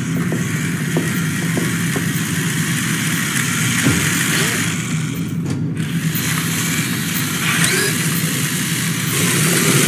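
Small electric motor of a remote-control toy car whirring as it drives across the floor, over a steady low hum, with a brief drop-out about five and a half seconds in.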